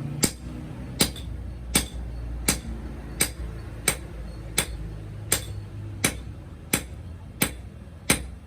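Hammer striking metal in a steady rhythm, about three blows every two seconds, over a steady low hum.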